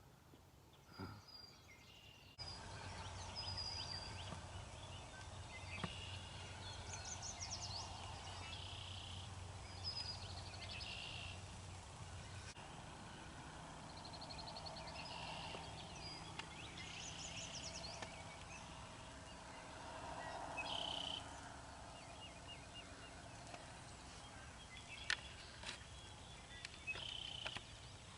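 Songbirds calling and singing in a dawn chorus, with a wild turkey gobbling in the distance a couple of times.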